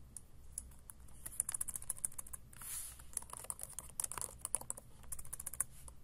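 Typing on a computer keyboard: quick runs of keystrokes with short pauses between them, plus a brief soft rush of noise about three seconds in.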